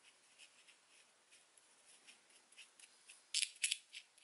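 Small applicator brush scraping and dabbing grease onto the acme-threaded screw of a bench vise: faint, scratchy rubbing, with a few sharper scrapes or clicks about three and a half seconds in.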